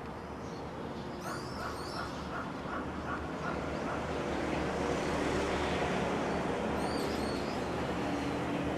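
Outdoor ambience: a dog barking in quick repeated yips, with birds chirping twice over a steady background wash that swells in the middle.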